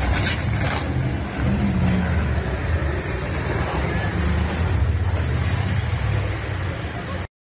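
Motor vehicle engine and traffic rumble, steady and low, with a few sharp knocks in the first second. The sound cuts off abruptly near the end.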